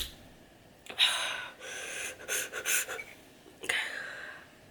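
A man panting hard through an open mouth: a run of quick, noisy breaths in and out, then one more near the end. This is the reaction to the burn of very spicy ramen.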